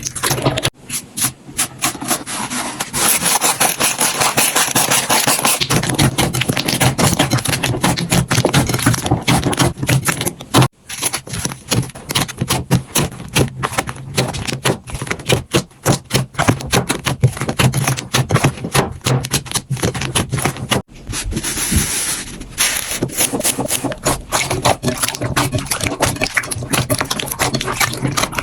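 Slime being squeezed and worked by hand, giving dense rapid crackling and popping. The sound breaks off abruptly a few times as one clip cuts to the next.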